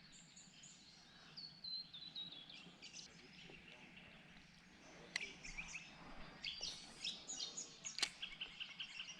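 Faint wild birds chirping and calling, with a falling run of notes about a second and a half in and a busier stretch of short chirps in the second half. Two sharp clicks stand out, one about five seconds in and one about eight.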